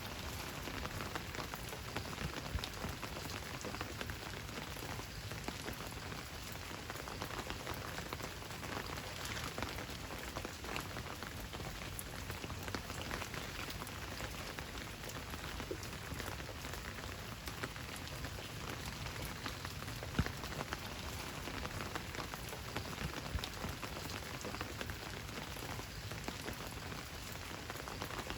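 Steady rain falling on a surface, a dense patter with individual drips ticking through it and a few louder drops.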